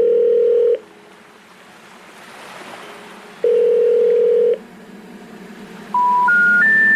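Telephone call-progress tones: a steady ringback beep lasting about a second, sounding twice, then three short tones rising in pitch step by step, the special information tone of a call that cannot be completed.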